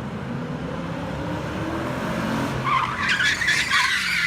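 Drift car's engine revving up and rising in pitch, then the tyres squealing loudly from about two and a half seconds in as the car slides.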